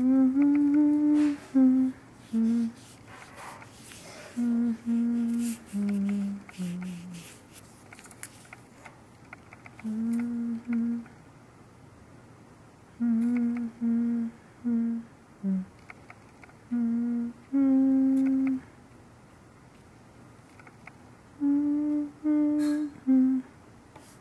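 A person humming a slow tune in short phrases of held notes with pauses between them, and a few soft clicks and brush scrapes in the gaps.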